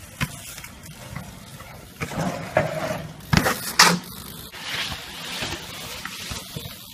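BMX bike being ridden on pavement: rolling and scuffing noise with sharp knocks of the bike hitting the ground. The loudest are two knocks about half a second apart, around halfway through.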